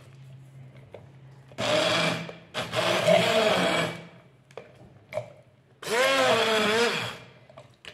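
Electric blender grinding cooked garlic, run in two short bursts: one starting about a second and a half in, the other near the end, with the motor pitch rising and falling as it works.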